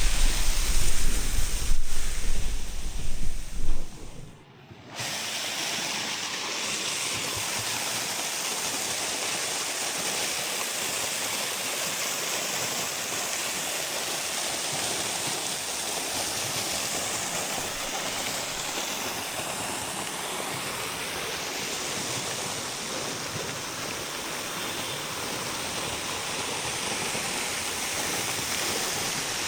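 Waterfall rushing as a steady, even roar of falling water. For the first four seconds a heavy low rumble sits under it, then the sound dips briefly and settles into the steady rush.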